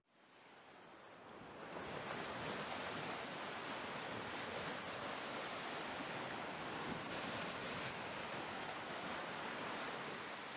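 Steady wash of ocean surf, fading in over the first two seconds.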